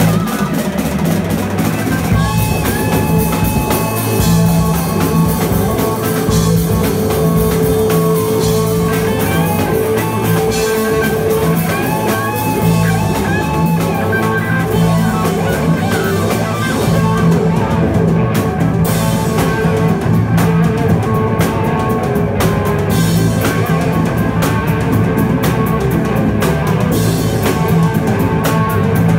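A live rock band playing loudly: guitars over a drum kit, with held guitar notes and a busy drum beat that hits harder from about halfway through.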